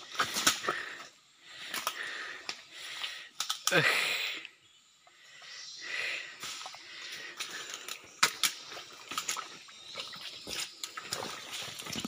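Footsteps and rustling through wet, muddy forest floor and undergrowth, with scattered sharp clicks and knocks. A short downward-sliding sound comes about four seconds in.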